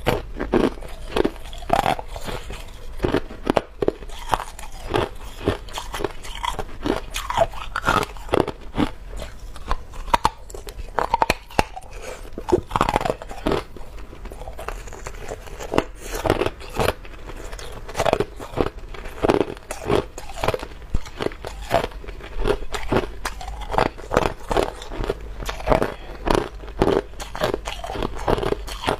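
Hard clear ice being bitten and chewed close to a clip-on microphone: a steady run of sharp, irregular crunches as chunks of ice ball crack between the teeth.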